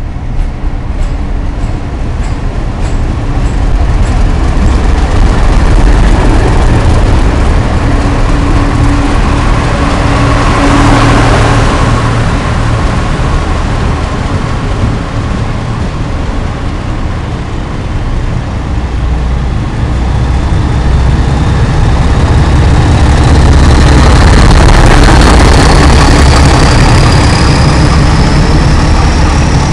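Class 31 diesel locomotives with their English Electric engines hauling coaches slowly through the station: a heavy, steady diesel throb mixed with wheel and rail noise, loudest as each locomotive draws level. Near the end a high whine rises steadily in pitch over the engine.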